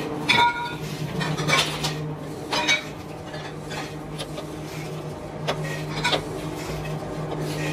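Several sharp metal clinks and knocks as rubber hoses on steel mandrels are set down on the perforated steel floor of a curing drum, over a steady low hum.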